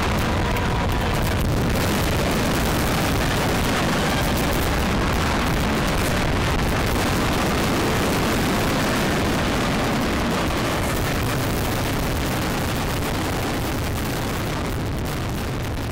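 Fireworks shells bursting in a continuous barrage, a dense, unbroken rumble of overlapping booms that eases off a little toward the end.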